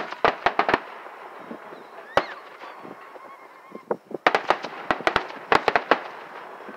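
Aerial firework shells bursting: clusters of sharp bangs and crackling reports, a quick rattle of cracks at the start, a single crack about two seconds in, and a dense run of reports between about four and six seconds in.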